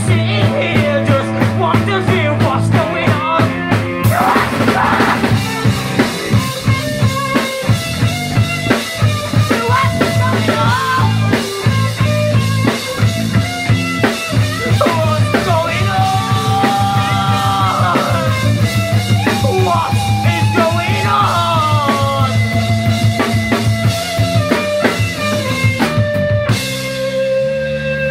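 Live rock band playing an instrumental passage: drum kit and bass keep a steady beat under a lead line with bending notes. About 26 seconds in the drums stop and a single held note rings on as the song ends.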